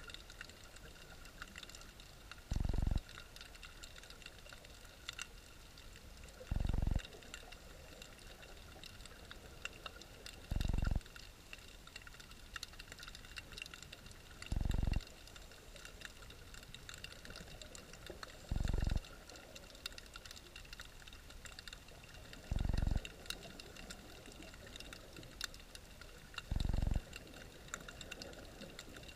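Underwater ambience picked up by a submerged camera: a constant fine crackle of clicks with a few steady faint tones, broken by a short low thump about every four seconds.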